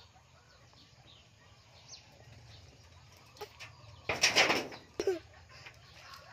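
A short burst of rustling and rattling about four seconds in as a rabbit shoves a wicker tray of grass across the turf, followed by a sharp knock about a second later.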